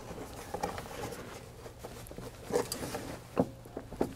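Plastic engine air cleaner housing being tugged and rocked upward out of its rubber grommet mounts: faint rubbing and handling noise, with two light knocks about two and a half and three and a half seconds in.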